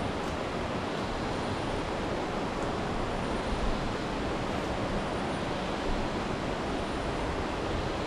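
Steady rushing of a fast-flowing river, an even noise that holds without a break.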